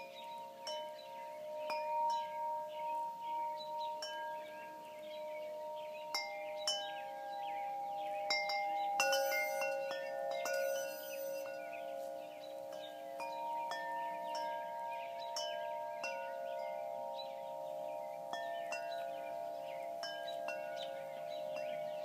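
Wind chimes ringing, struck at irregular moments, several tones ringing on and overlapping. A busier flurry of strikes comes about nine to eleven seconds in.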